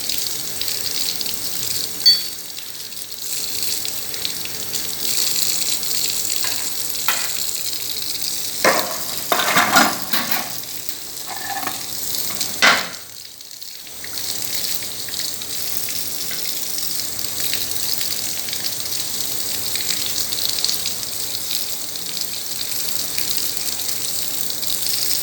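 Warm water running steadily from a tap into a sink while a glue gun is rinsed clean, with a few knocks and clatters of handling near the middle.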